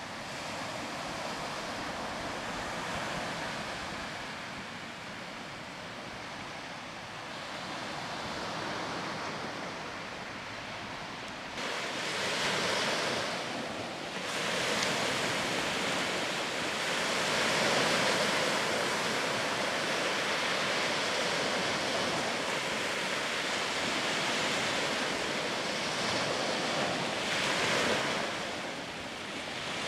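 Small sea waves breaking and washing up on a sandy beach in a steady hiss. The surf noise turns suddenly louder and brighter about twelve seconds in.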